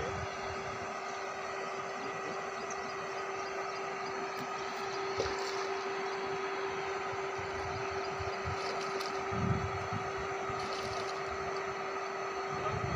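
Steady drone of a running motor, with a constant hum that doesn't change in pitch, and a couple of small knocks.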